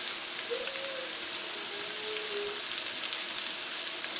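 Cornstarch-coated beef slices sizzling steadily in a wok on high heat, with scattered light crackles, as the meat sears undisturbed to brown on one side.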